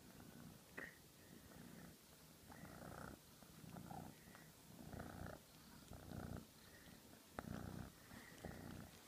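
Young grey tabby cat purring faintly, close up, the purr swelling and easing with each breath about once a second. A couple of faint clicks come through, one about a second in and one near the end.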